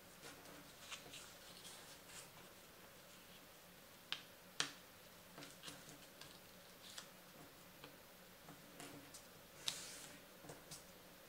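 Paper being folded and creased by hand on a wooden tabletop: faint rustles and small clicks, with a few sharper clicks about four and a half seconds in and again near ten seconds.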